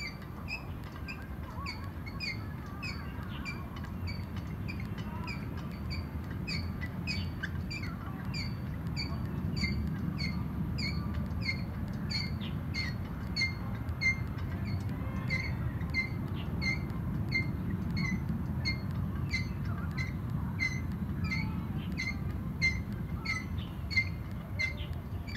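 Outdoor-gym shoulder wheel turned by hand, its pivot giving a short high squeak about twice a second in a steady rhythm, over a low steady rumble.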